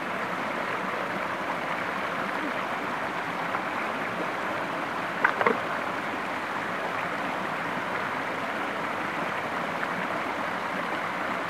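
Running water of a rocky stream, a steady rushing noise throughout, with one brief louder sound about five seconds in.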